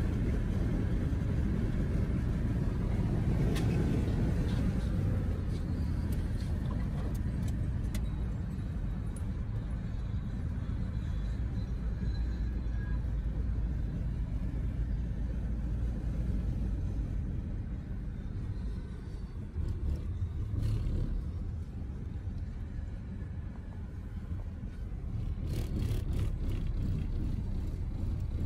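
Steady low rumble of a car driving at highway speed, heard from inside the cabin: tyre and engine noise, with a few faint clicks near the start and near the end.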